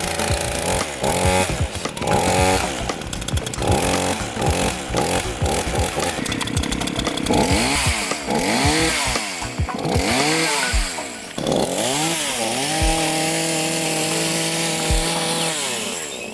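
Chainsaw engine revving over and over, its pitch rising and falling with each blip of the throttle, then held at a steady high speed for about three seconds before it drops away near the end.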